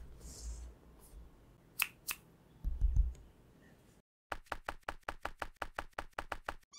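A cardboard gaming-mouse box handled on a wooden desk: a brief rubbing, two light taps, then a dull thud as it is set down. After a sudden cut about four seconds in, a fast even run of sharp clicks, about five a second.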